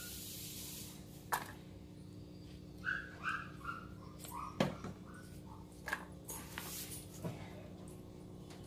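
Faint taps and clicks of a plastic spoon against a perforated steel plate as wet pieces of ash gourd peel are lifted out of buttermilk and set down, a few separate knocks over several seconds. About three seconds in, a short run of high whimpering calls steps down in pitch, from an animal.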